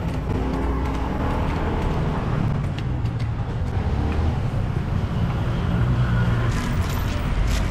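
Road traffic: a steady low rumble of passing vehicles, with a few sharp clicks, most of them near the end.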